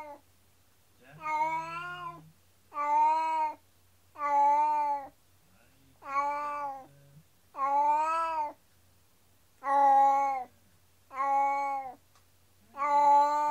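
Domestic cat meowing over and over in long, plaintive, wailing calls, about one every second and a half. The owners hear it as the saddest crying yet and take it for distress while its companion cat is away at the vet for surgery.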